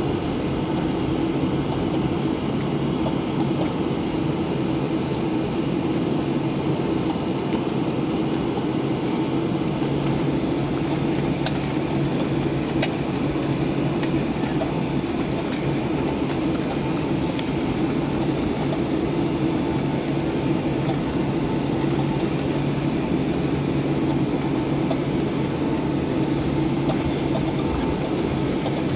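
Steady cabin noise of a Boeing 737-800 taxiing, heard from inside the cabin by the wing: its CFM56-7B engines run near idle thrust with an even drone and a low hum.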